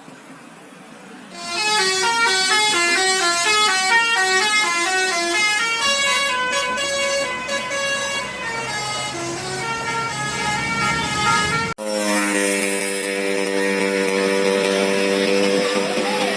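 Bus telolet horn, a Basuri multi-tone horn, playing a quick melody of short stepped notes, starting about a second and a half in. Near the end it breaks off abruptly and a horn holds a steady chord of several tones.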